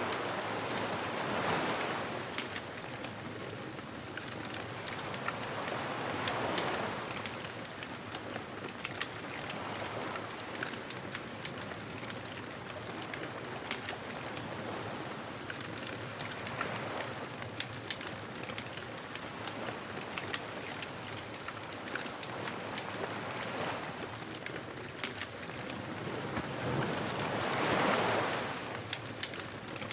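Ocean surf washing onto a beach in slow swells every several seconds, the loudest one near the end, over the steady crackle and pop of a bonfire.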